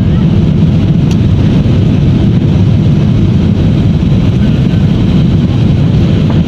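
Steady, loud roar of a Boeing 737 rolling down the runway after landing, heard inside the cabin: jet engine noise mixed with the rumble of the wheels on the runway.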